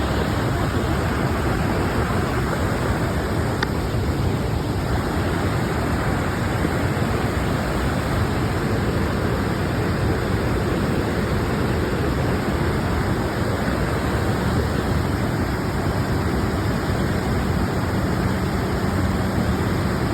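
A waterfall making a steady, dense rush of falling water, heaviest in the low range and unchanging throughout.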